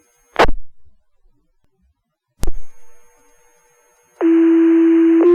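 Fire-dispatch radio channel: two sharp clicks of the transmitter keying, about two seconds apart, then about four seconds in a loud, steady paging alert tone starts and changes to a second tone about a second later, the two-tone page that sets off the volunteer firefighters' pagers.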